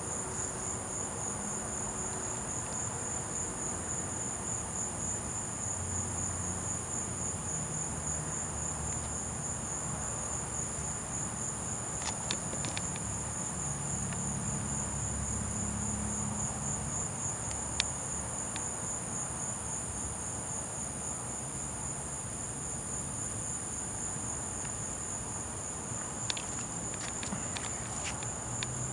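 Chorus of night-singing insects, crickets among them, trilling steadily at two high pitches, with a few faint clicks along the way.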